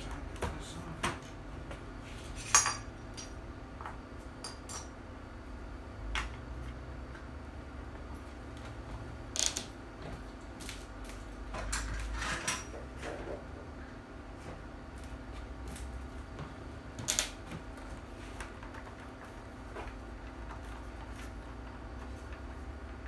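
Scattered clicks, clinks and knocks of hard plastic parts and small tools being handled and set down while a replica pulse rifle is taken apart. The sharpest knock comes about two and a half seconds in, with a short rattle of handling around twelve seconds.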